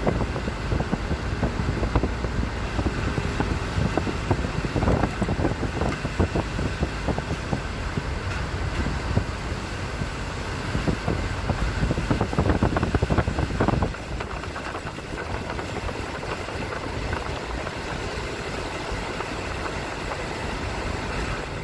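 A car driving along, its engine and road noise steady, with some wind. The noise drops to a lower level about two-thirds of the way through.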